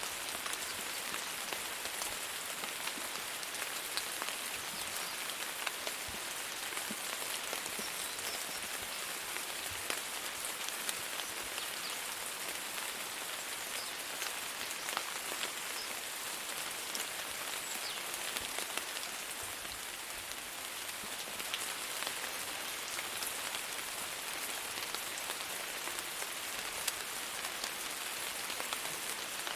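Steady rain falling on a surface, an even hiss with many individual drops pattering through it.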